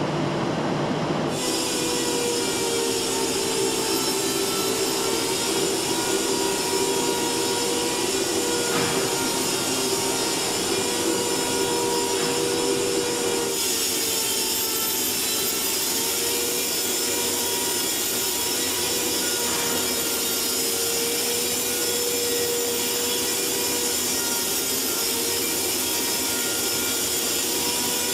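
Robotic paint-spraying booth running: a steady hiss of spray air and booth machinery with a low steady hum under it. The sound shifts abruptly about a second in and again about halfway through.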